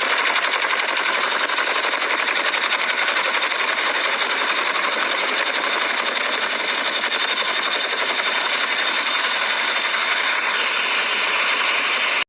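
Helicopter sound effect: a fast, steady rotor chop with a faint high turbine whine over it, cutting off suddenly at the end.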